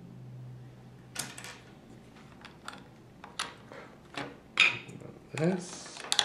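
Plastic Lego bricks and plates clicking and clattering as they are handled and pressed onto a model car build: a series of sharp clicks at irregular intervals, the loudest about four and a half seconds in.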